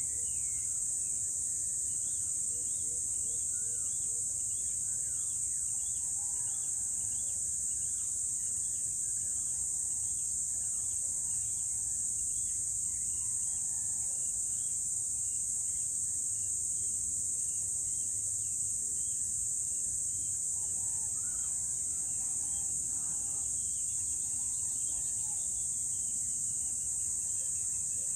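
Steady high-pitched drone of insects, with many short bird chirps repeating over it and a faint low rumble underneath: an outdoor early-morning dawn chorus.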